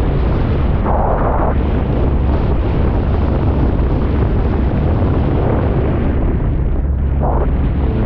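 Heavy wind buffeting on the microphone over the rumble of a Sea-Doo personal watercraft running across choppy water, with short louder rushes of spray about a second in and near the end.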